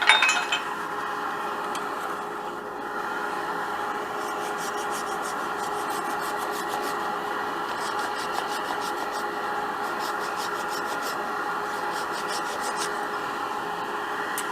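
Wood lathe running steadily with something rubbing against the spinning cedar workpiece. There is a brief clatter at the start, then a rapid, fine scratching through the middle stretch.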